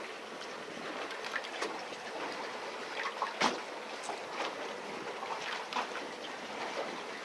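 Seawater lapping and splashing against a fishing boat's hull: a steady wash of water with irregular small slaps, the sharpest about three and a half seconds in.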